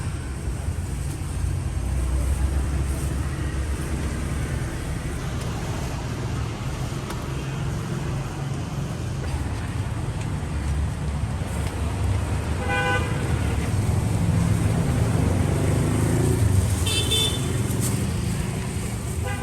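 Steady road-traffic rumble with short vehicle-horn toots: one about 13 seconds in, a higher one about 17 seconds in, and another near the end.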